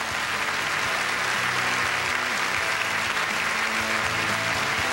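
Audience applauding, with instrumental music playing underneath.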